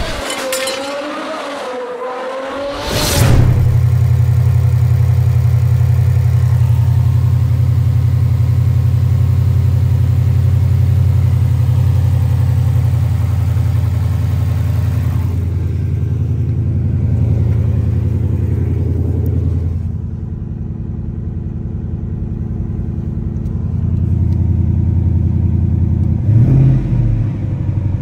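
A short logo sound effect with a wavering, gliding tone, then a Ford Mustang's Generation 3 5.0 L Coyote DOHC V8 starts idling steadily about three seconds in. It is briefly revved near the end.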